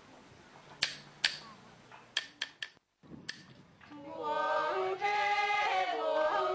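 A few sharp wooden clacks of sênh clappers struck at an uneven pace, then after a brief dropout a chorus of women's voices starts singing a hát dô folk song together about four seconds in; the singing is the loudest part.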